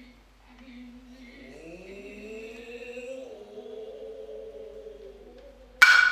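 Noh music: a long drawn-out vocal call that slides upward in pitch and then holds, the kind of cry (kakegoe) a Noh drummer gives before a stroke. Near the end comes a single sharp, loud crack of a tsuzumi hand drum that rings briefly.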